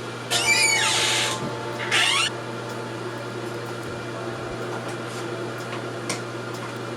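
A steady mechanical hum with two short, loud whirring bursts near the start: the first about a second long, the second shorter, about two seconds in.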